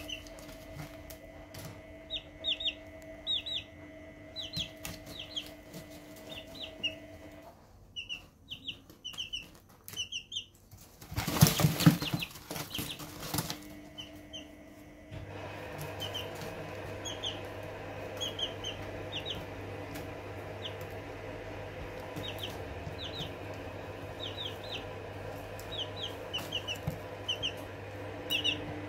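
Three-week-old Barred Plymouth Rock chicks peeping in short, high cheeps that come in quick clusters. About eleven seconds in there is a loud flurry of wing flapping lasting a couple of seconds, from chicks sparring. A steady hum runs underneath and gets louder about halfway through.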